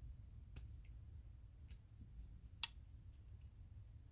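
Ontario Rat Model 1 folding knife being worked, with a few faint clicks and one sharp click about two and a half seconds in as the blade swings and locks.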